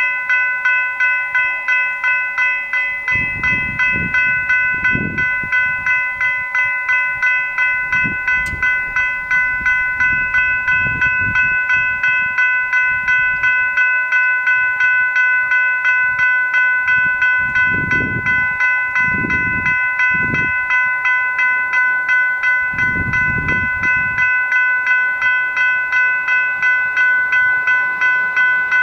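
Two General Signals Type 3 electronic level-crossing bells ringing rapidly and steadily, signalling an approaching train while the warning lights flash and the boom gates lower. A low rumble comes and goes several times underneath.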